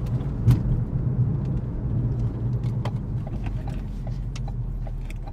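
Ford Focus RS Mk3's 2.3-litre turbocharged four-cylinder engine and exhaust running with a steady low drone during light driving, heard from inside the cabin. There is one sharp click about half a second in, and faint regular ticking in the second half.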